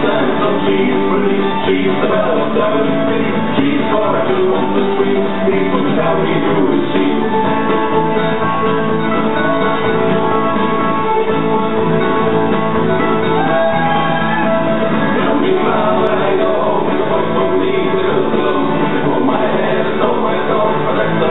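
Country music with guitar, playing for the dance.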